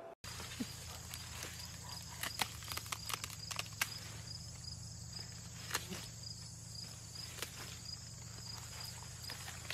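Dog rustling and crackling a fallen corn leaf in grass, with scattered sharp snaps and steps, over a steady pulsing chirp of field insects.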